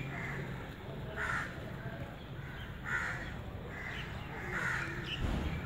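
Crows cawing: about four calls spaced roughly a second and a half apart.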